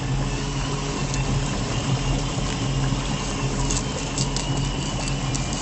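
Steady hum of a running motor, with a few faint clicks about four seconds in.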